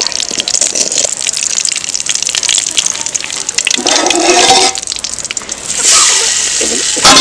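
Mustard seeds and curry leaves spluttering and crackling fast in hot coconut oil: a tempering being fried. About four seconds in a metal pot lid scrapes and clatters. Near the end comes a louder rush of sizzling and a sharp metal clang.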